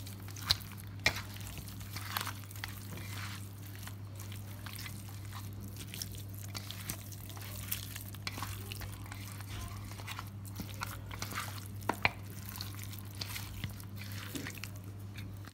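Hands squishing and rubbing raw chicken leg pieces coated in wet ginger-garlic paste in a steel bowl: soft, irregular wet squelches and small clicks, with a few sharper clicks, over a steady low hum.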